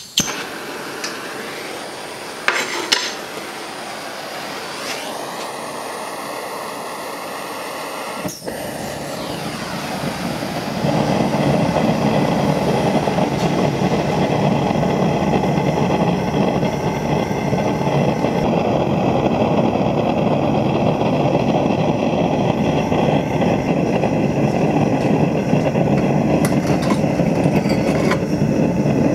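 Propane forge burner: a few sharp clicks, a hiss, and a pop about eight seconds in as it lights, then a steady roar that steps up louder about eleven seconds in as the gas is turned up at the needle valve.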